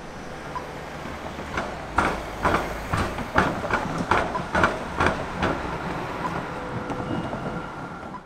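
A tram's wheels clunking across the tram-and-railway track crossing, about ten sharp clacks, roughly two a second, over a steady rumble of passing traffic.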